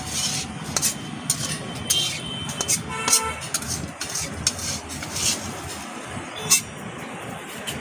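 Steel spatula scraping and knocking against a steel kadai as chicken pieces are stirred, a scatter of short sharp scrapes. A vehicle horn toots briefly about three seconds in.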